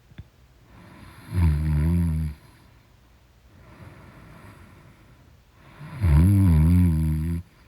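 A woman snoring loudly: two long snores about four and a half seconds apart, each lasting about a second, with a low, slightly wavering pitch and softer breathing between them.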